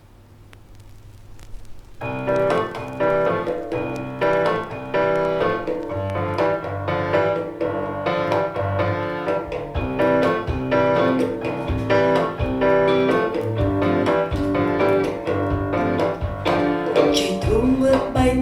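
A vinyl record playing on a turntable through Cambridge Evo One speakers: faint surface ticks for about two seconds, then piano-led music starts suddenly and carries on at full level.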